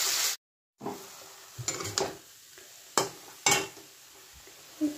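Chopped Malabar spinach sizzling loudly in a hot kadai, cut off abruptly about half a second in. Then the cooked greens fry more quietly while a spatula is stirred through them, scraping and knocking against the pan about five times.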